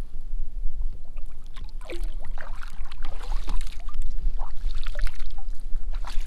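Water splashing and trickling beside a kayak, a cluster of short splashes and drips, as a redfish is let go over the side. A steady low rumble runs underneath.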